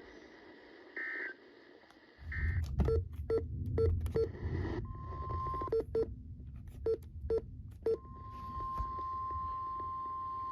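NOAA Weather Radio alert signalling over a radio receiver. It opens with two short, high-pitched end-of-message data bursts. From about two seconds in come crackling static and sharp clicks, with a brief steady tone near the middle. About eight seconds in, the steady 1050 Hz warning alarm tone starts and holds.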